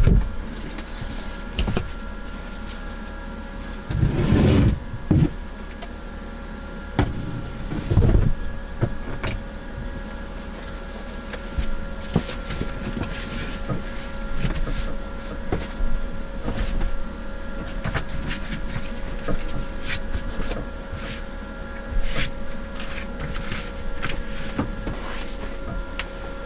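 Handling noises in a small wooden camper as a bed is set up: knocks, clicks and rustling as a quilted foam sleeping mat is laid out and a stuffed sleeping-bag sack is moved, with louder thumps about four and eight seconds in. A steady hum runs underneath.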